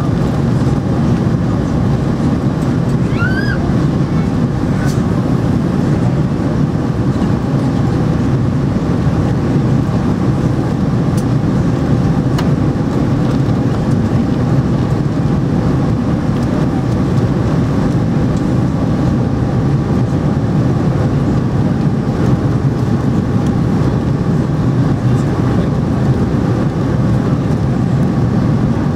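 Steady engine and airflow noise inside the passenger cabin of an Airbus A300B4-600 in flight, heard from a window seat over the wing.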